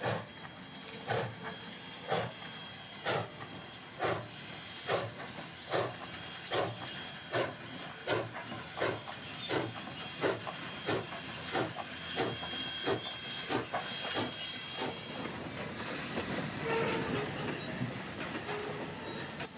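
Ex-Canadian National 2-6-0 steam locomotive No. 89 passing under load, its exhaust chuffing in a steady beat of about one a second that gradually quickens. From about sixteen seconds in the engine has gone by, and the freight cars roll past with a steady rumble and clatter of wheels on the rails.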